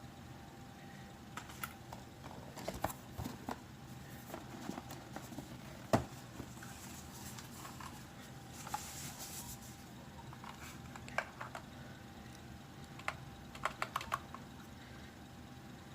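Keys pressed on an Anne Pro 2 mechanical keyboard: irregular, scattered clicks in short clusters, with one louder knock about six seconds in and a brief rustle a few seconds later.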